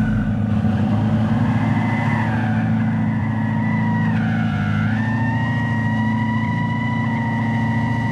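Electric 2025 Dodge Charger's artificial exhaust sound (Fratzonic Chambered Exhaust) holding a steady, engine-like drone while the car drifts. Over it runs a high tire squeal that dips in pitch for a moment about halfway through.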